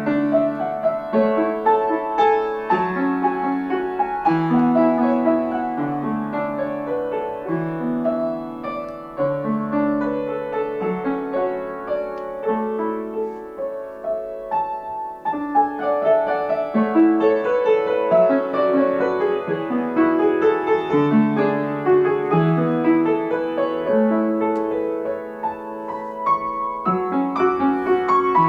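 Piano music: a melody of held notes over chords.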